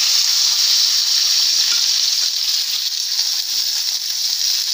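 Onion petals light-frying in hot oil in a kadhai: a loud, steady sizzle, with a spoon stirring them.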